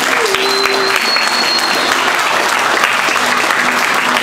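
A crowd applauding steadily, many hands clapping at once. A high steady tone rises over the clapping about half a second in and lasts more than a second.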